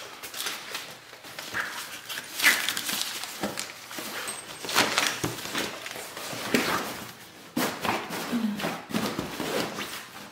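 Fabric and padded board of a collapsible folding wagon being handled: irregular rustling swishes and scrapes as a padded floor panel is laid into the fabric bed and the side fabric is tugged into place.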